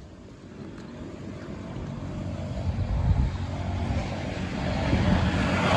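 A motor vehicle's engine drawing closer, its rumble and road noise growing steadily louder.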